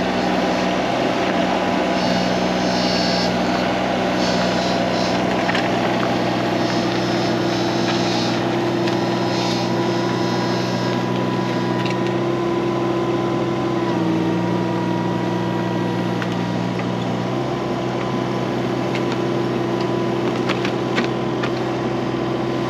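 An engine running steadily, its pitch shifting slightly about two-thirds of the way through.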